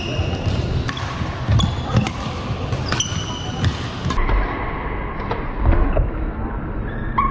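Badminton rally: sharp racket hits on the shuttlecock and short, high squeaks of court shoes on the hall floor, repeating irregularly throughout.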